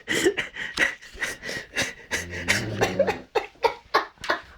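Wheezy snoring and breathing from a sleeping man, with a thin steady whistle, mixed with short bursts of stifled laughter.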